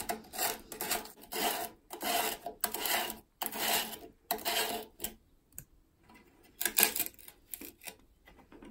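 Plastic back nut being unscrewed by hand from the threaded tail of a toilet cistern siphon: a run of short scraping strokes, about two a second, as the plastic threads turn. The strokes stop about five seconds in, and a few more come about seven seconds in.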